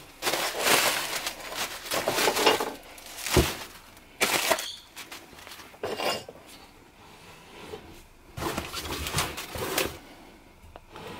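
Plastic packing bags and bubble wrap crinkling and rustling in uneven bursts as they are handled and stuffed into a cardboard box, with a single sharp knock about three seconds in.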